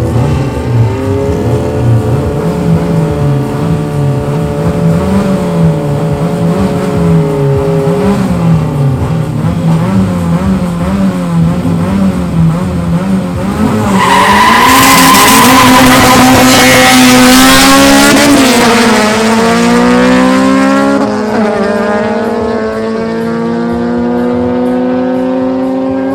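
Honda Civic drag car engines revving up and down at the start line. About fourteen seconds in the launch comes: loud tire squeal over the engines at full throttle, their pitch climbing in steps through the gear changes as the cars pull away.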